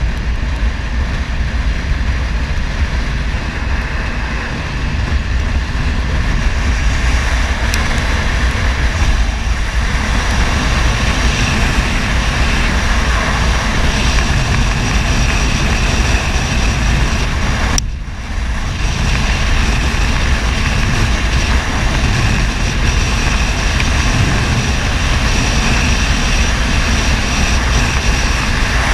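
Wind roaring over the microphone of a motorbike riding at road speed, with its engine droning underneath. The roar dips briefly about eighteen seconds in.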